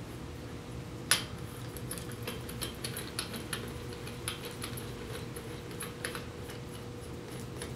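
Scattered light clicks and taps of metal parts being handled as the collet of a Huck nose assembly is screwed by hand onto the piston of a Huck 2624 PTD lockbolt tool, with a sharper click about a second in. A faint steady hum runs underneath.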